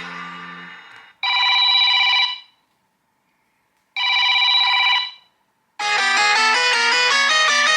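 Samsung Galaxy S24 Ultra ringtones played one after another: a melodic tone fades out, then a phone-style ring sounds twice, each ring about a second long with nearly three seconds between them. Near the end a new ringtone of quick, repeating melodic notes begins.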